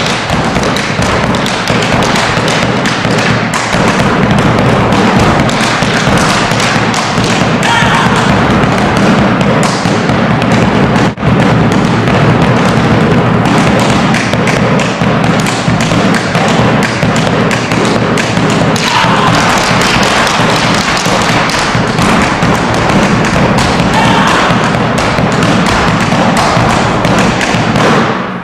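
Fast, continuous drumming on a bombo legüero mixed with rapid thuds and taps of boleadora stones striking a wooden stage floor in a malambo-style boleadoras routine, with one especially sharp knock about a third of the way through.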